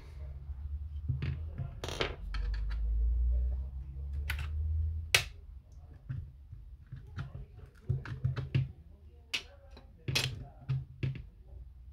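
Irregular sharp clicks and taps of tools and small parts being handled while an Apple Time Capsule is taken apart, with a low rumble in the first half.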